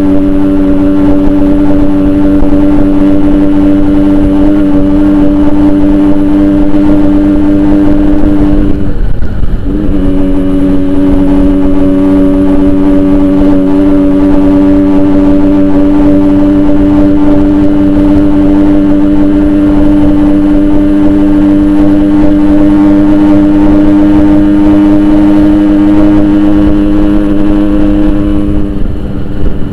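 Yamaha RX-King 135cc single-cylinder two-stroke engine running hard at steady revs through a modified exhaust while being ridden. Its pitch holds even except for a brief dip and recovery about nine seconds in and another near the end, like a gear change.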